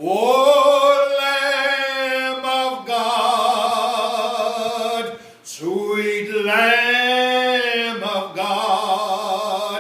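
A man singing a hymn solo and unaccompanied, holding long sustained notes, with brief breaths about five seconds in and again just after eight seconds.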